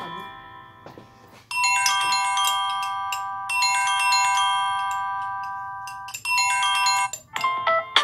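Samsung Galaxy A3 (2017) ringtones playing through the phone's speaker. A tune fades out, then about one and a half seconds in a bright chiming, bell-like ringtone phrase plays and repeats twice more, and a different ringtone starts near the end.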